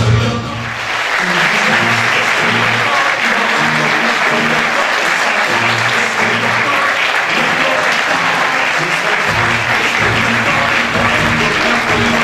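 A theatre audience applauding, beginning about a second in and continuing steadily, over a song with a bass line that keeps playing underneath.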